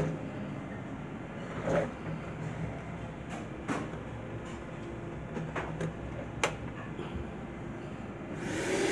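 Wet-and-dry vacuum cleaner being handled: scattered clicks and knocks as its hose is fitted and its head is gripped, over a steady low hum. Near the end a hiss swells up with a rising whine.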